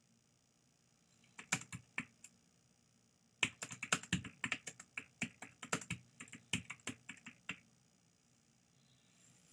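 Typing on a computer keyboard: a short flurry of keystrokes, a pause of about a second, then a longer run of quick keystrokes lasting about four seconds.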